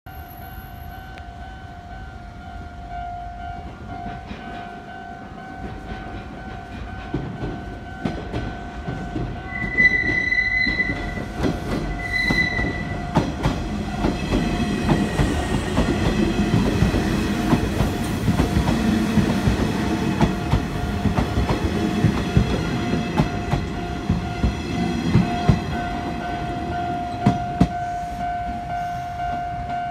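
A Japanese level-crossing alarm rings steadily throughout. A Nishitetsu 5000 series electric train sounds its horn twice, about ten and twelve seconds in, a longer blast then a short one. It then rumbles through the crossing, wheels clattering over the rail joints for most of the second half.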